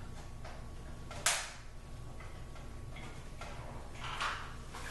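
Small clicks and knocks of a metal vanity light bar being handled and fitted against the wall, with one sharp clack about a second in and a brief scrape near the end.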